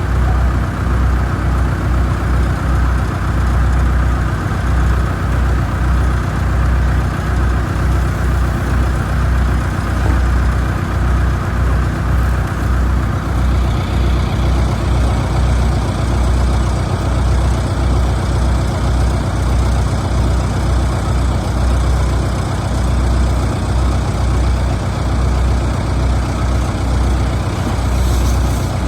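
Heavy diesel engine of a mobile concrete pump truck running steadily and loudly, with a deep low hum throughout.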